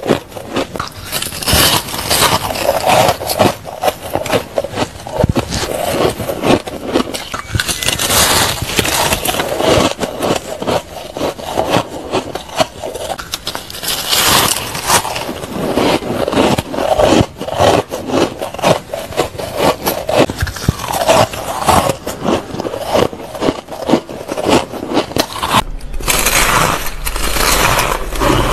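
Fluffy, dry shaved ice crunching and squeaking as it is bitten and chewed close to the microphone, a quick dense run of crisp crackles. Near the end a low hum comes in under the crunching.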